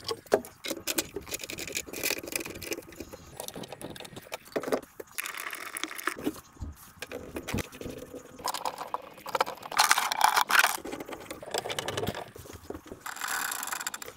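Plastic drain pipe parts being handled and fitted by gloved hands: irregular clicks, knocks and scraping of plastic pieces and slip nuts pushed together and turned, with a couple of longer rubbing stretches.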